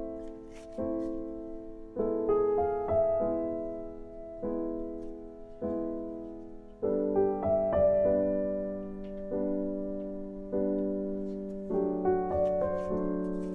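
Background piano music: soft chords struck about once a second, each left to fade before the next.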